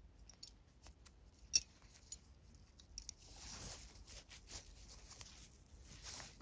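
Nylon paracord threaded through a metal belt buckle: a few sharp metallic clicks of the buckle being handled, the loudest about one and a half seconds in, then a soft rustling hiss of the cord being pulled through, starting about three seconds in.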